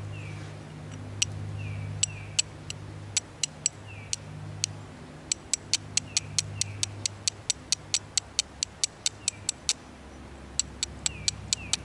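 Steel striker struck again and again against a locally found stone, flint-and-steel fashion, throwing sparks onto char cloth: sharp clicking strikes, a few spaced ones at first, then quick runs of about four a second broken by short pauses.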